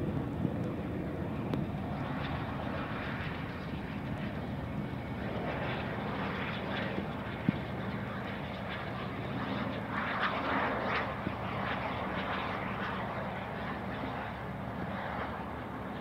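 Diesel train running, a steady engine drone under a hiss that swells twice, with a few sharp clicks.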